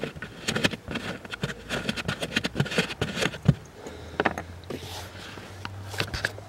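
Small clicks, taps and scrapes of plastic as a hand works the under-dash trim panel loose in a car's passenger footwell, with one sharper knock about three and a half seconds in.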